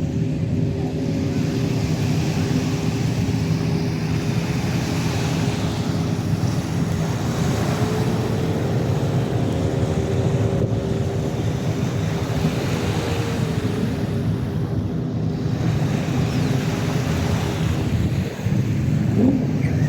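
An engine running steadily, its pitch rising a little about eight seconds in and easing back down a few seconds later, over a constant rush of wind and water noise.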